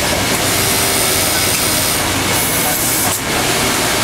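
Industrial high-speed overlock sewing machine (Racing MCA18K-38-TR on a Pegasus EX5100-type head) running steadily as fabric is fed through it, with a brief dip a little past three seconds in.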